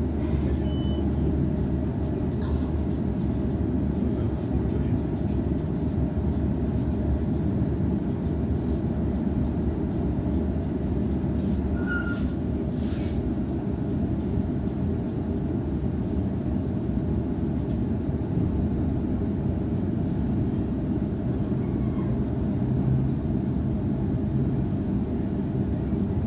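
Cabin of a Waratah electric suburban train running at speed: a steady low rumble of wheels on rails and running gear, with a few faint clicks about halfway through.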